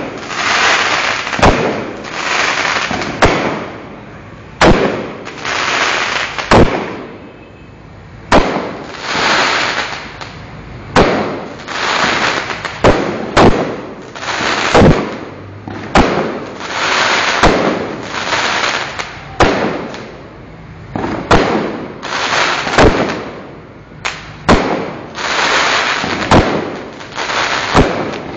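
A fireworks display: many sharp bangs, about one to two seconds apart, most followed by about a second of noise as the shells go off.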